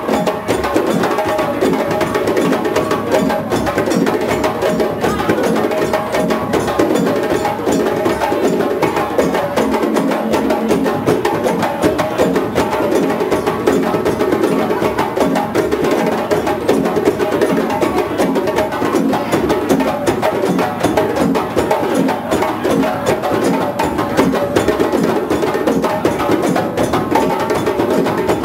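Several djembe drums played together by hand in a fast, continuous groove of dense, overlapping slaps and tones that keeps going without a break.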